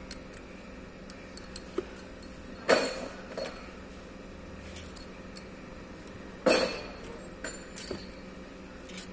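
Steel head bolts clinking as they are lifted out of a Kia Rio cylinder head and set down, with light metallic ticks throughout and two louder ringing clanks, about three seconds in and again about six and a half seconds in.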